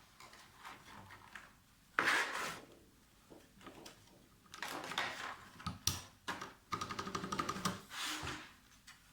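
Plastic keycaps being handled and pressed onto mechanical keyboard switches: scattered clicks and clacks, a louder clatter about two seconds in, and a busy run of quick ticks and rattles in the second half.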